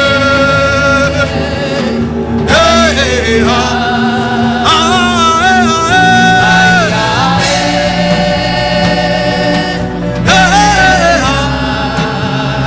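Gospel song with sung vocal phrases and held, bending notes over sustained chords and bass.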